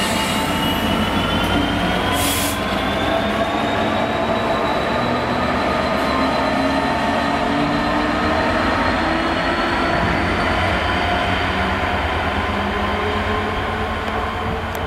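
Class 66 diesel-electric freight locomotive with its EMD two-stroke diesel engine running loud and steady as it draws away. A thin whine rises slowly in pitch over the first several seconds, and a short burst of noise comes about two seconds in.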